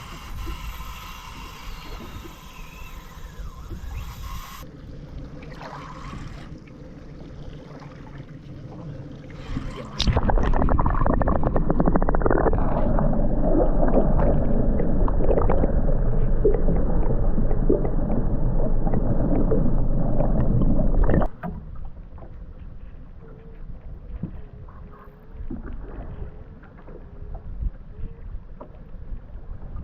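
Steady rushing noise of a sport-fishing boat at sea, wind and water with the boat running. It turns much louder about ten seconds in and cuts off suddenly about twenty-one seconds in.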